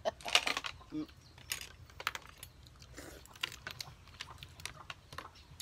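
Scattered light clicks and clinks of cooked sikad-sikad sea snail shells being handled and picked at while eating, in short clusters about a second apart.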